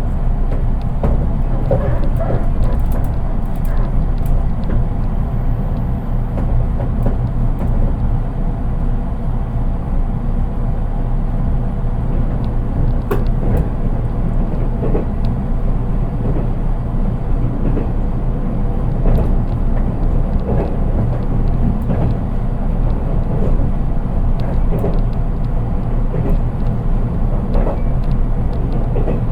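JR East 183 series electric train running, heard inside its unpowered KuHa 183 driving trailer car: a steady low rumble of wheels on rail, with no motor whine and scattered faint clicks and knocks from the running gear.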